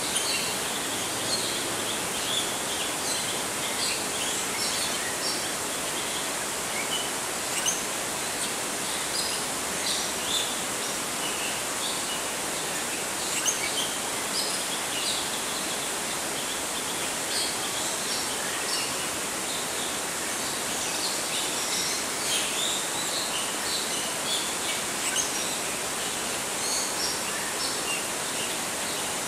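Small birds chirping in many short, high notes, scattered throughout, over a steady hiss.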